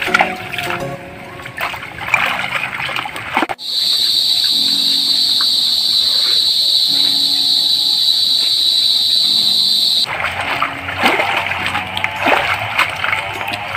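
Water splashing and sloshing as a mesh bag of clams is swished and rinsed in shallow creek water. From about four seconds in until about ten, the splashing stops and a steady high-pitched buzz takes over, with low steady music notes underneath.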